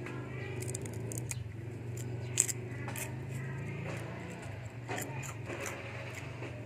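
A few sharp clicks and light scraping over a steady low hum, the loudest click about two and a half seconds in.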